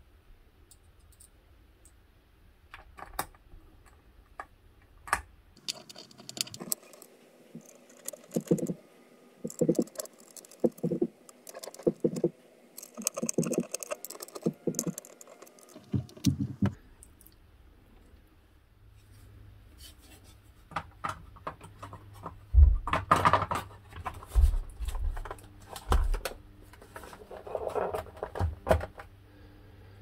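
Clicks, taps and knocks of hands handling the ZX Spectrum Next's circuit board and plastic case during reassembly. A run of evenly spaced knocks comes about once a second through the middle, and a few low thumps come later, after a short lull.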